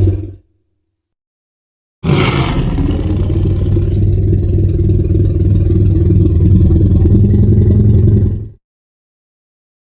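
Tyrannosaurus rex sound effect: after a second or so of silence, a long, low rumbling growl starts sharply with a brief harsher edge and holds for about six seconds before fading out.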